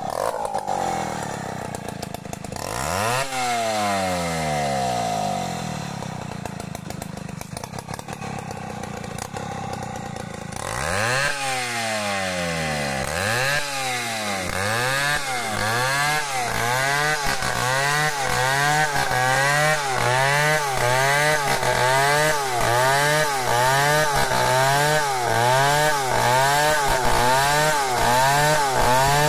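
Stihl 070 two-stroke chainsaw ripping a log lengthwise. Its engine note drops about three seconds in and picks up again near eleven seconds. It then rises and falls in pitch about once a second as the chain works through the cut.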